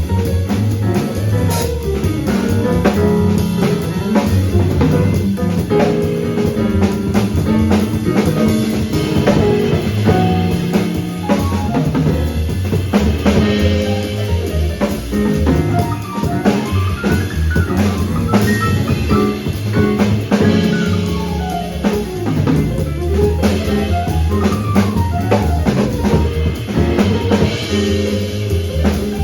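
Live jazz quartet playing, with the drum kit to the fore (snare, bass drum and rimshots) over a bass line and pitched notes from the other instruments.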